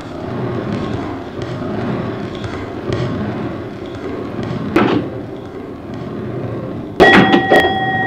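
Indistinct murmur of a crowd in a large hall, with scattered knocks and a sharp thump about halfway through. About a second before the end, a steady electronic beep with sharp clicks comes in over it.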